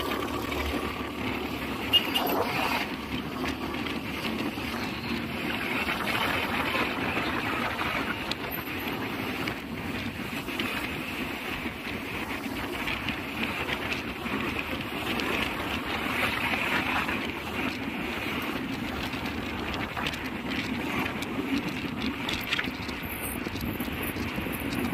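Steady rush of wind and road noise from riding a motor scooter through city traffic, with a single sharp knock about two seconds in.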